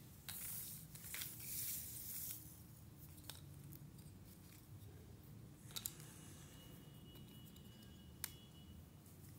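Cardboard jigsaw puzzle pieces rustling and scraping on a hard floor for about two seconds, then a few light clicks as pieces are picked up and set down.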